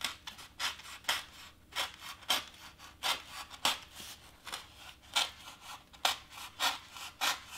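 Craft knife cutting through foam board in short, scratchy sawing strokes, about two to three a second, as the blade is worked along a curved line.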